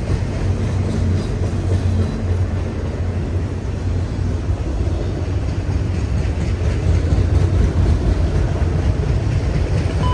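Freight train rolling past, a steady low rumble of the cars going by.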